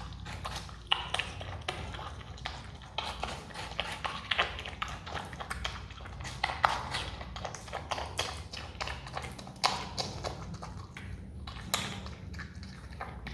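Himalayan marmot biting and chewing a wedge of watermelon: irregular crunching bites and smacking, many small sharp clicks in no steady rhythm.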